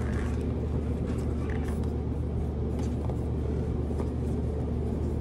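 A steady low hum runs throughout, with a few faint clicks and scrapes of a stiff cardboard shaver box being pried open by hand.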